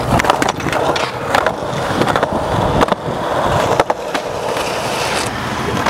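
Skateboard wheels rolling steadily over concrete, with several sharp clacks of the board through the run.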